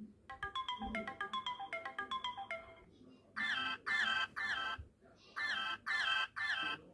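Samsung Galaxy Tab E tablet playing LineageOS alarm tones through its speaker: first a quick run of short plinked notes falling in pitch for about two and a half seconds, then, after a brief pause, a different tone of longer warbling notes in two groups of three.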